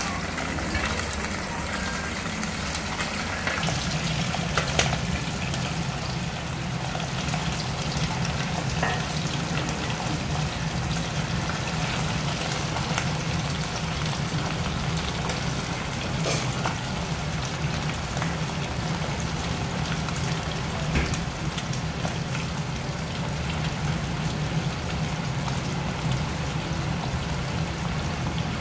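Pieces of goat udder deep-frying in a pot of oil: a steady sizzle full of fine crackles and occasional sharper pops. A steady low hum joins about three and a half seconds in.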